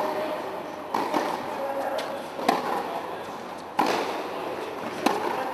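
Tennis rally on an indoor hard court: sharp pops of the ball struck by rackets and bouncing off the court, about six at uneven intervals, each echoing briefly in the hall.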